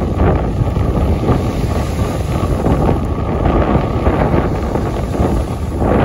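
Strong wind buffeting the microphone with a steady rumble, over small lake waves breaking and washing up onto a sandy shore.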